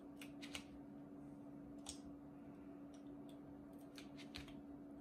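Faint scattered ticks and crinkles of a weeding pick poking into cut vinyl and peeling waste pieces off the decal's backing paper, over a low steady hum.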